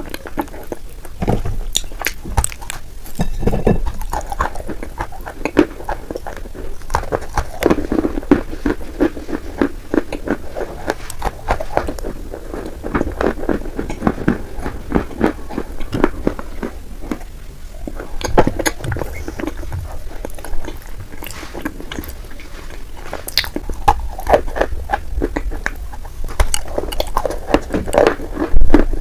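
Close-miked chewing of edible Turkestan clay and clay paste, with a dense run of small crackles and clicks from the mouth.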